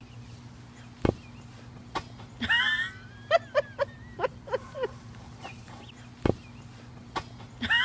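An animal's calls over a steady low hum: a loud cry with bending pitch, then a quick run of short high chirps, heard twice, with a couple of dull thumps.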